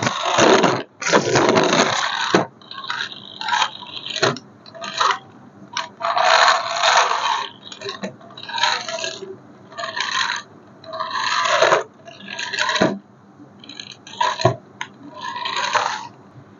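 Irregular bursts of scraping and clattering from hard objects being handled, about a dozen in all, each lasting under about a second.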